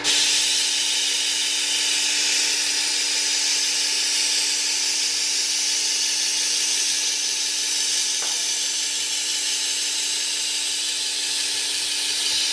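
A kitchen knife's steel edge grinding against the coarse-grit abrasive belt of a Work Sharp 3000 belt sharpener, giving a steady, loud hiss over the motor's hum as the second bevel is sharpened to raise a burr. The grinding starts and stops abruptly.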